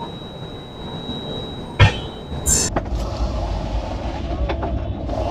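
Express passenger train running on its rails, heard from inside the coach: a steady low rumble with a few wheel clicks. It sets in about halfway through, right after a sharp knock and a short hiss.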